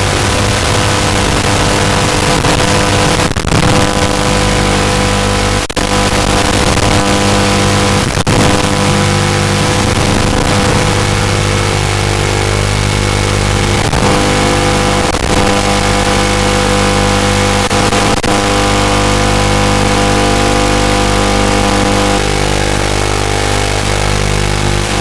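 Steady electronic buzz, a constant stack of hum tones with hiss above, from the analog FPV video receiver's audio channel as the goggle DVR records it, with no sound source transmitted from the drone. It crackles briefly a handful of times, at moments of signal breakup.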